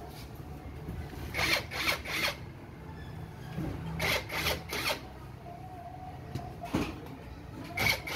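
Cordless drill-driver turning screws in a sheet panel of a water treatment plant's housing, running in short bursts: a cluster of three quick whirs a little over a second in, another three around four seconds in, a single one near seven seconds and more near the end.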